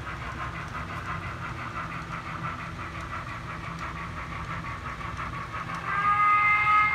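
HO-scale model steam locomotive with onboard sound running, giving fast, even steam chuffs over a low rumble; about six seconds in a chime whistle starts sounding and is the loudest part.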